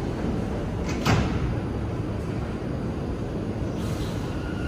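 Bombardier R179 subway car doors sliding shut with a single sharp thump about a second in, over a steady low rumble.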